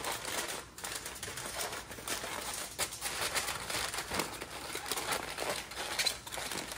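Aluminum foil crinkling as gloved hands fold and crimp a foil packet's edges together to seal it, a continuous irregular run of small crackles.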